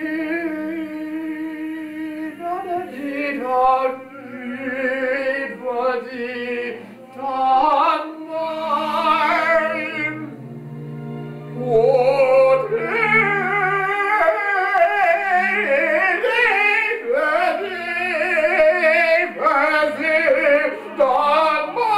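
A man singing in an operatic style with a wide vibrato, in long phrases over steady low held notes.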